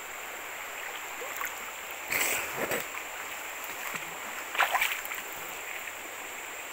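Steady rush of a river flowing, with water splashing close by twice, about two seconds in and again about four and a half seconds in, as a person moves and surfaces in the water.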